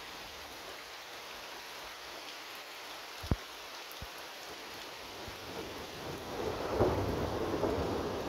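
Steady rain, with a roll of thunder building about six seconds in and rumbling on. A single sharp tap a little over three seconds in.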